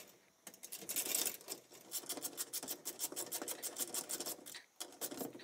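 Metal nut being turned off a threaded stud by hand to free a fluorescent fixture's ballast: a quiet, fast run of scratchy metal clicks that stops briefly near the end.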